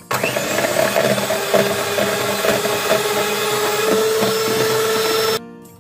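Electric hand mixer running steadily, its twin steel beaters whipping cream, with a constant motor whine; it switches off suddenly near the end.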